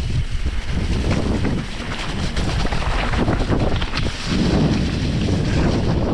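Mountain bike ridden down a rough trail: wind buffeting the camera microphone, with the rattles and knocks of the bike going over the ground.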